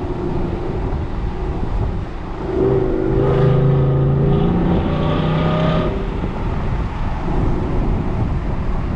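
Ford F-150's 5.0 V8 through a Corsa Extreme exhaust, heard from the cab with the windows down while driving: a steady low rumble, then the engine pulls harder from about two and a half seconds in, louder and rising in pitch, before easing back around six seconds in.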